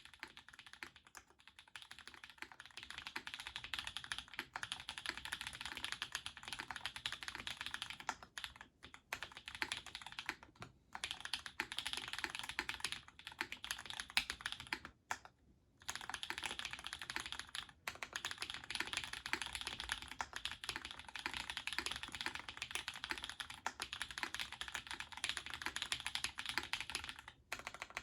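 Duck Orion v2.5 custom mechanical keyboard, with Krytox-lubed Holy Chicky switches on an FR-4 plate and GMK keycaps, being typed on fast and continuously. The keystrokes run densely, with a few short pauses, the longest about fifteen seconds in.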